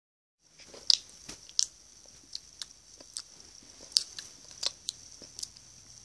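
Handling noise from a phone being moved against fabric and a plush puppet: irregular sharp crackles and clicks, about one every half second, over a faint steady hiss.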